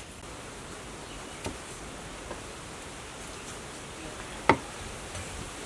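A cleaver chops down hard once through squid onto a wooden chopping block about four and a half seconds in, after a couple of light taps, over a steady background hiss.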